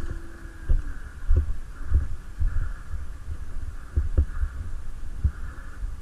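Dull low thumps at an uneven pace, some in quick pairs, over a steady hiss: footsteps and movement knocking the microphone during an airsoft game.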